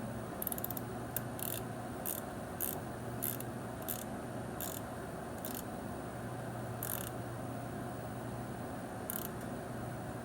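Hand ratchet wrench clicking through short back-strokes, about two a second at first, then slowing to a couple of single strokes, while the primary oil drain plug is snugged down.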